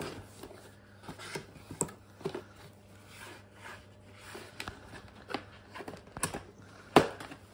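Cardboard toy box being opened and handled: flaps rustling and scraping, with scattered clicks and taps, the sharpest one near the end.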